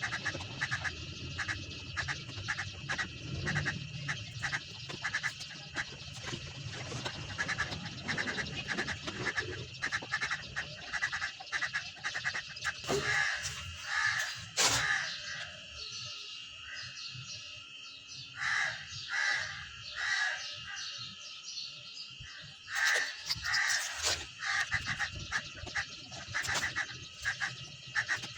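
Birds calling repeatedly in short groups, over a steady high-pitched tone and many short clicks and taps.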